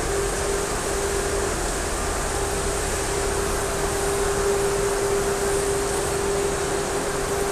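Water spraying steadily from a hand-held dog-wash shower nozzle onto a dog's wet fur, over a steady hum.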